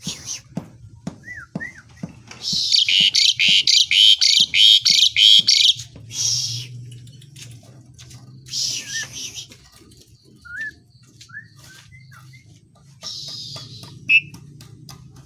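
Asian pied starling (jalak suren) calling: a loud run of harsh, fast-pulsed rasping notes lasting about three seconds, then shorter raspy bursts and scattered short whistled notes. Sharp clicks run through it.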